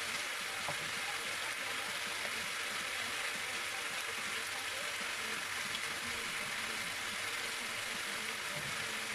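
Chicken pieces sizzling in a frying pan, a steady hiss with no break.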